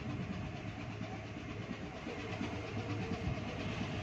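A ship's diesel engine running steadily, a continuous low hum under a wash of mechanical noise.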